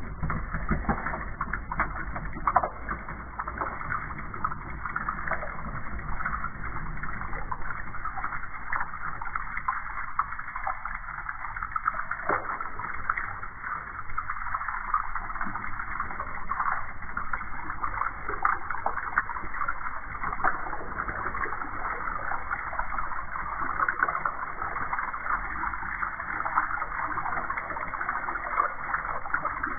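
Water splashing steadily from a spout into a tub holding shallow water, a continuous crackling splash with no break.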